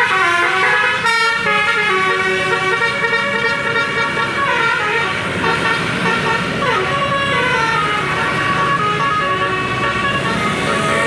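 A bus's telolet musical horn playing a tune in stepped notes, several pitches sounding together, with a falling glide about six seconds in, over road traffic.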